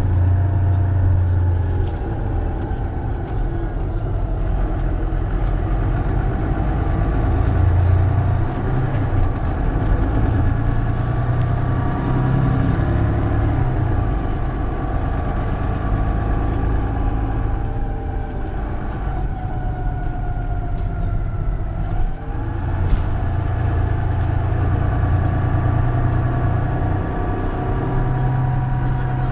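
Mercedes-Benz Citaro city bus diesel engine running under way, its note rising and falling with acceleration and gear changes. About twenty seconds in the pitch drops away and then climbs again.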